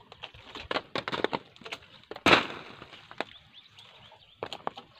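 Plastic tarpaulin rustling and crackling as it is handled, with scattered sharp crackles and one loud crack a little over two seconds in.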